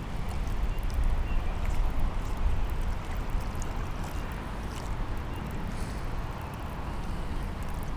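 Gusty wind buffeting the microphone: a low, rumbling rush that swells for a couple of seconds near the start, then settles.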